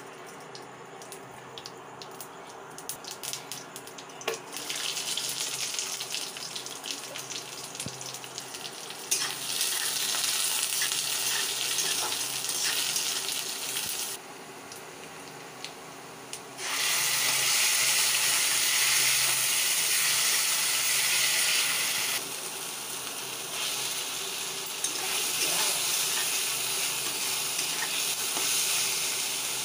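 Cooking oil and onion slices sizzling in a metal kadai, stirred with a spatula. It starts with light crackling as the oil heats, then the sizzling swells in stretches and is loudest in the second half.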